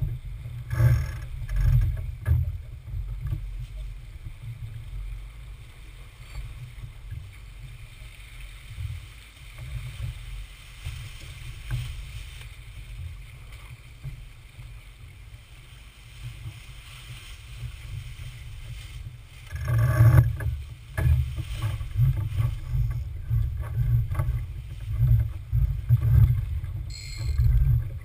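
Gusty wind rumbling on the microphone of a sailboat under way, with a faint wash of water. About twenty seconds in there is a burst of louder knocks and rustling.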